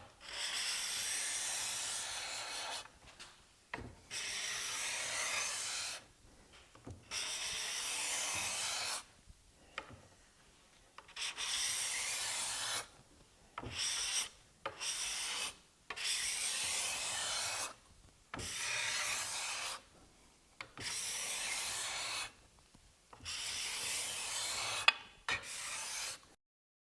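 Steel card scraper scraping a Brazilian rosewood board in about ten strokes of roughly two seconds each, with short pauses between them. The freshly sharpened burr is taking shavings off the planer's mill marks.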